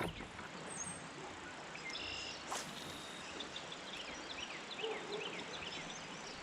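Steady outdoor background hiss with a small bird singing a quick run of short chirps through the middle, and one light knock about two and a half seconds in.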